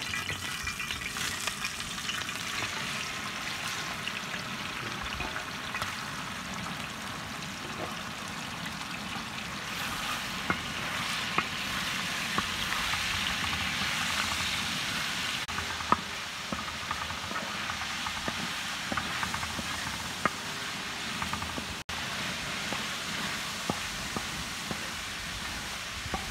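Boneless chicken pieces sizzling steadily in hot oil in a large metal pan, stirred with a flat spatula that scrapes and taps against the pan now and then.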